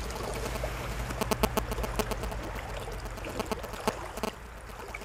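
Shallow, fast stream water running close by, over a steady low rumble, with many irregular sharp clicks and ticks, thickest in the middle, as a trout hooked on a spinner is fought on a spinning rod and reel.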